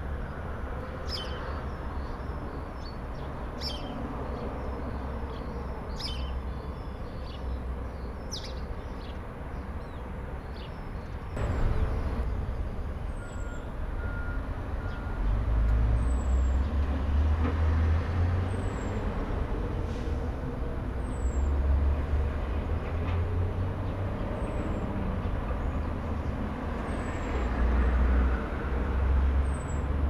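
Heavy truck engines running with a deep low rumble that swells about a third of the way in and stays louder, pulsing up and down. Birds chirp over it for the first several seconds, and three short faint beeps come near the middle.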